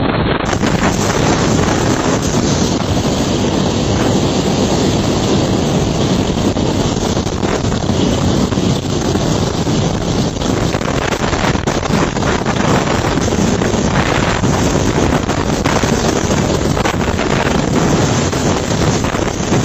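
Wind buffeting the microphone: a loud, steady, unbroken rush with strong rumble.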